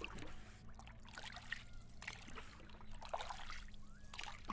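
Faint water splashing and trickling in irregular bursts about once a second, over a low steady hum.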